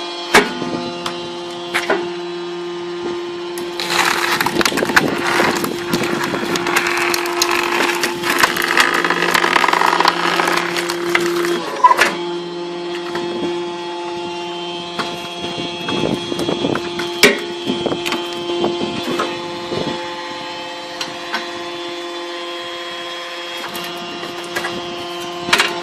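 Firewood splitter running with a steady hum as a log is pushed through its steel box wedge. From about 4 s in, the wood cracks and splinters for some eight seconds, ending in a sharp knock, with further clunks of split pieces later on.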